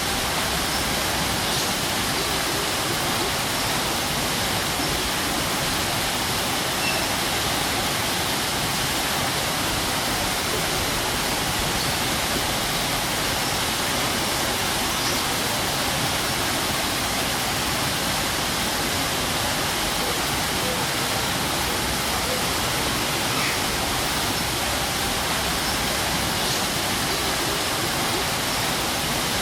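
Strong waterfall: a steady rush of falling water.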